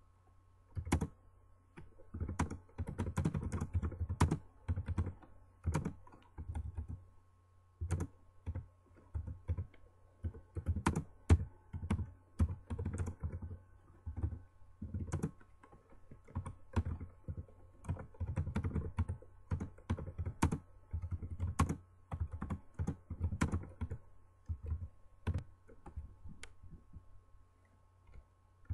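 Typing on a computer keyboard: irregular runs of keystrokes with short pauses between words, stopping for a couple of seconds near the end.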